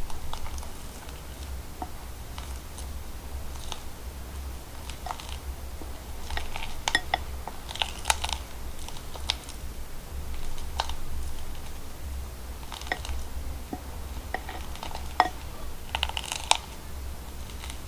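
Slime being squished and worked by hand, giving irregular sticky clicks and crackles, with a denser cluster of pops twice. A steady low hum lies underneath.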